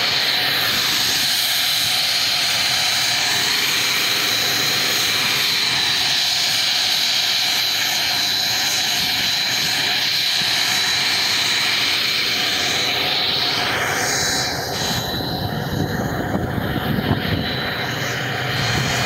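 Piper single-engine piston propeller plane droning as it flies low past the microphone, the sound turning fuller and louder in the last few seconds as it passes close over the runway.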